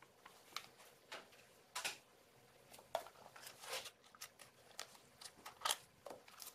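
Faint scattered clicks and rustles of small objects being handled on a work table, a few short ones each second.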